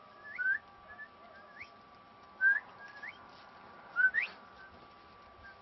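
A string of short, rising whistled notes, repeated every second or so, with three louder ones about two seconds apart.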